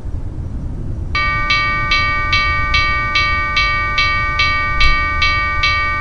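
Railroad crossing warning bell starting about a second in as the crossing signals activate, struck about two and a half times a second, with a ringing tone that carries between strikes. This is the warning of an approaching train. A low, steady rumble runs underneath.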